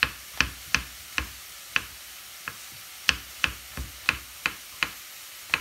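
Kitchen knife slicing button mushrooms on a wooden butcher-block chopping board: about a dozen sharp knocks of the blade striking the wood, at an uneven pace of two or three a second.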